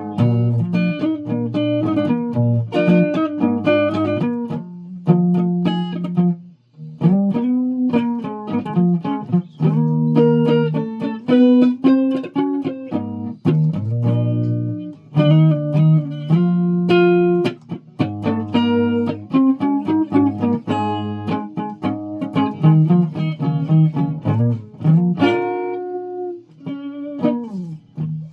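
Guitar being played: a run of plucked notes and chords, some of them sliding in pitch, with a brief pause about six and a half seconds in.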